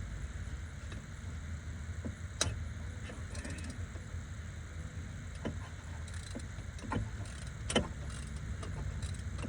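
Hand tools on metal giving a few scattered clicks and knocks while a bolt holding the AC compressor to its bracket is worked loose. The loudest knock comes near the end, over a steady low rumble.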